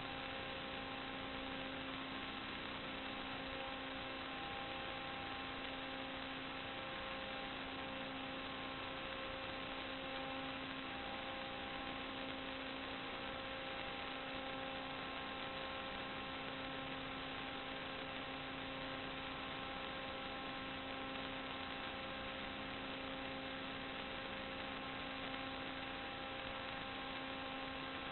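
Steady electrical hum and hiss: several constant tones over an even noise, with no real-world sound in it, the kind of noise an FPV video receiver's recording carries when the quadcopter's camera sends no audio.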